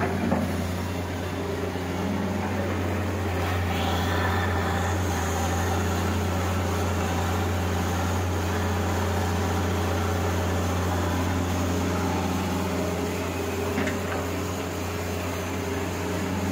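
John Deere 595D wheeled excavator's diesel engine running under working load as it swings and loads the truck, a deep steady hum.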